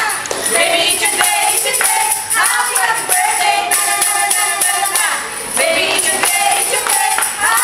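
Several waitstaff singing a birthday song together, with a tambourine shaken and struck in rhythm and hands clapping along.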